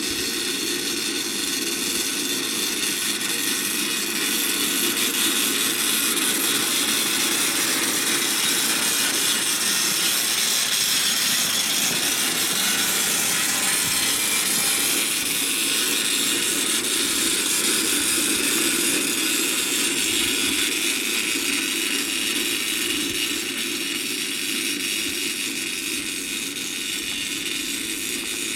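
I&J ground-drive sickle bar mower cutting hay. Its reciprocating cutter-bar knife and wheel-driven gearing run steadily as one horse pulls it along.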